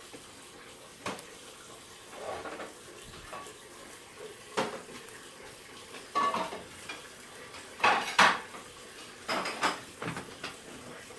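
Small plastic building-block figure pieces clicking and clattering as they are handled and pushed together, in scattered short knocks with the loudest cluster a little past the middle.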